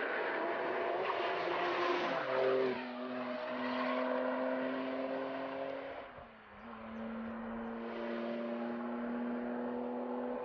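Turbocharged flat-six engine of a RUF Porsche 911-based car at speed on a race track, a steady note that glides lower about two seconds in and drops briefly in level and pitch around six seconds in, as at a lift-off or gear change.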